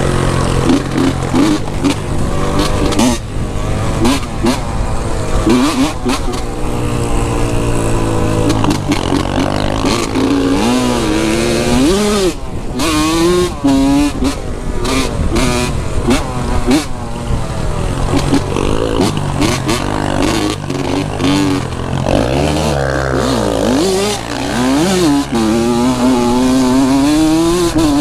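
Dirt bike engine revving up and down as it is ridden, its pitch rising and falling over and over with throttle and gear changes.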